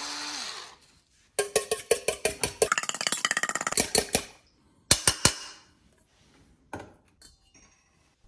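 Electric salt grinder whirring with a low hum, stopping under a second in. Then a fork beating an egg in a stainless steel bowl, rapid clicking strokes against the metal for about three seconds, followed by a few sharp clinks a little later.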